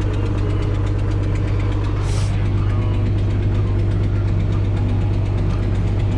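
Tractor engine running steadily with a deep, even hum, with a brief hiss about two seconds in.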